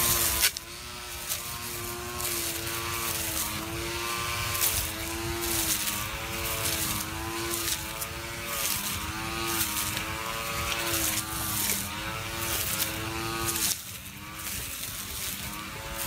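Homemade cordless grass trimmer driven by a 775 DC motor, whining at a high pitch that sags and recovers again and again as the blade bites into leafy ground cover, with quick ticks and swishes from the cutting head striking the plants. The motor's whine cuts out near the end.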